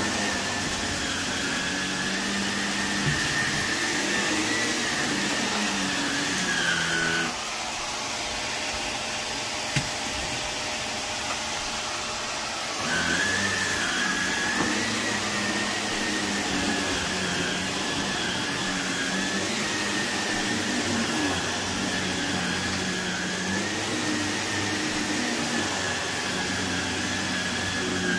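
Shark upright vacuum running on carpet: a steady motor drone with a high whine that wavers slightly as it is pushed back and forth. Near the middle the whine drops away for about five seconds and the sound gets a little quieter, then the whine comes back.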